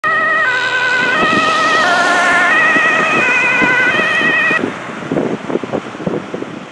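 Dutch ambulance's two-tone siren alternating between a high and a low note about every half second. It cuts off about four and a half seconds in, leaving the van's engine and road noise.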